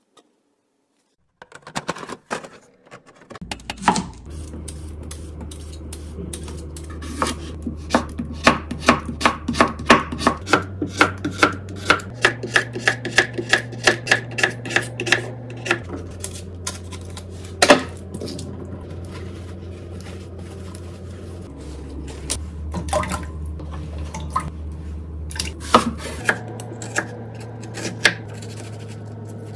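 Ceramic-bladed kitchen knife chopping vegetables on a wooden cutting board, starting a few seconds in. It goes in quick runs of sharp taps, several a second, with an onion being minced near the end.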